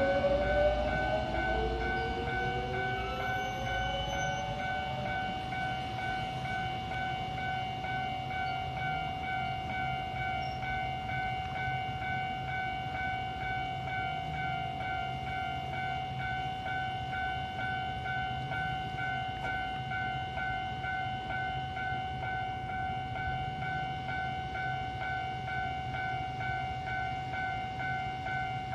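Taiwan Railways EMU800 electric multiple unit braking to a stop, its traction inverter whine gliding in pitch for the first few seconds. It then stands at the platform with a steady high electrical whine and a low hum from its onboard equipment.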